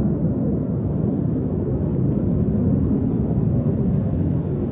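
Steady low rumble of military fighter jets' engines passing overhead at a distance.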